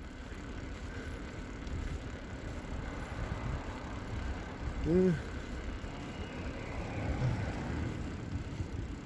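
Low rumble of wind on the microphone and tyres rolling over a tarmac road while riding, with a short hum-like voice sound about five seconds in.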